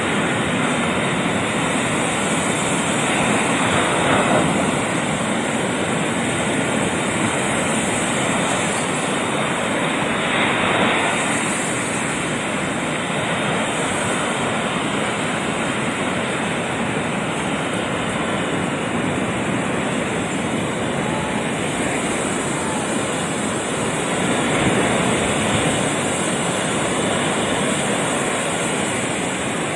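Ocean surf breaking and washing up a sandy beach: a steady rush of waves that swells a few times as bigger waves break.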